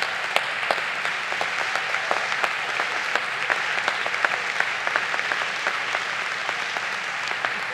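Audience applauding steadily: a dense patter of many hands clapping that holds at an even level throughout.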